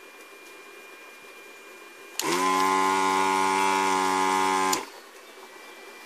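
Electric desoldering gun's vacuum pump buzzing for about two and a half seconds while it sucks molten solder out of a through-hole joint on an inverter circuit board. It starts abruptly with a short rise in pitch, holds a steady buzz, then cuts off.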